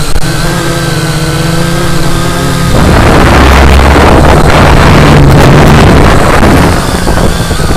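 Electric motors and propellers of a small FPV aircraft, heard through its onboard camera's microphone: a steady buzzing hum, then about three seconds in a loud rush of propeller and wind noise that eases off near the end.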